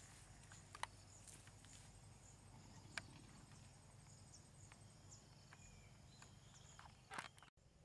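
Near silence: faint forest ambience with high, thin insect chirping and a few short, sharp clicks.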